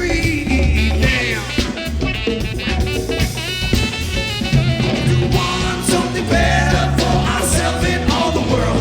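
A live rap-rock band playing at full volume, led by a drum kit with a steady bass underneath, in a stretch of the song without lyrics.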